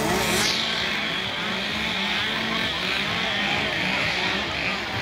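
Outdoor crowd din: many indistinct voices over a steady low rumble, with a brief falling hiss at the start.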